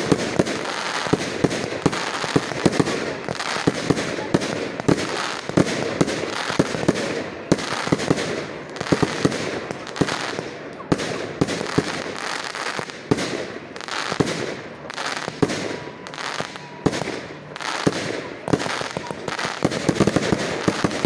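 Aerial fireworks going off overhead: a continuous barrage of sharp bangs at irregular intervals, often one or two a second, over steady crackling from the bursting stars.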